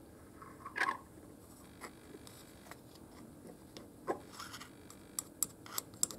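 Quiet, scattered clicks and scrapes of small carburettor parts being handled and scraped on a workbench. There is a longer scrape about a second in and a quicker run of clicks near the end.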